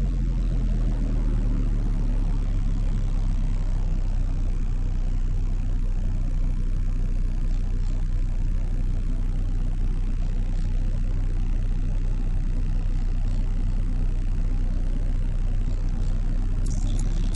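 Car-audio subwoofer system playing a steady, very deep bass tone at high volume, heard inside the car's cabin. A run of light high-pitched ticks comes in near the end.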